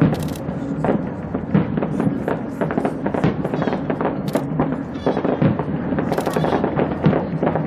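Fireworks display: a dense, continuous run of bangs and crackles from bursting shells, with music playing underneath.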